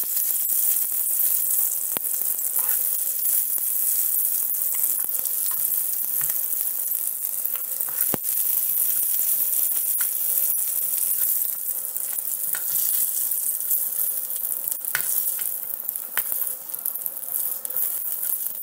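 Masala-marinated chicken pieces sizzling steadily as they fry in hot oil, while a steel spoon stirs them and now and then knocks against the pan.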